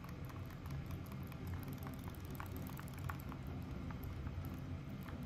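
Light, irregular splashing and ticking of water in a bowl, stirred by swimming robot fish toys and a kitten nosing at them, over a low steady rumble.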